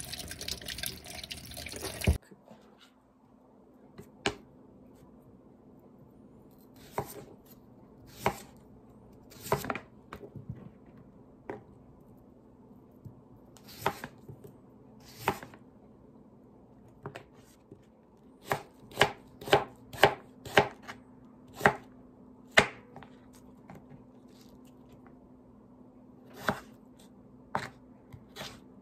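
Tap water running over a potato being washed in a stainless steel sink, cut off about two seconds in. Then a kitchen knife knocks on a cutting board as the potato is sliced into thin matchsticks: separate single strokes, coming faster for a few seconds past the middle.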